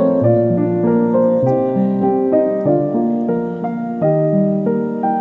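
Background piano music: a steady flow of notes and chords, a new note struck several times a second.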